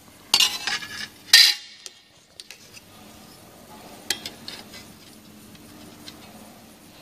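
Thin steel sheet and its cut-out disc clattering on a metal workbench: a burst of sharp metallic clinks in the first second and a half. After that come faint clicks and scrapes as a steel vernier caliper is handled against the sheet.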